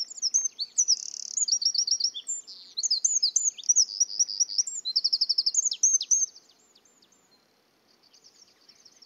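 Small songbird singing with quick chirps and rapid trills, loud for about six seconds, then fading to faint.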